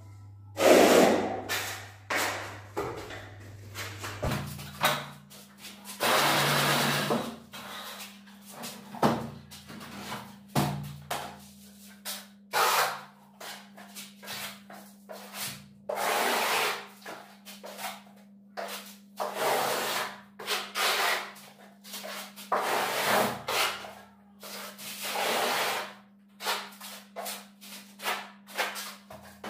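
Hand plastering tool rubbing and scraping across a wall while decorative bark-beetle (koroed) plaster is applied: irregular strokes of about a second each, one after another, over a faint steady hum.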